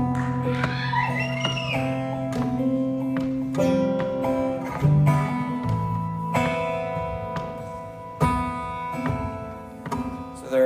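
Acoustic guitar played live, an instrumental passage of plucked and strummed chords with long ringing notes, growing softer near the end.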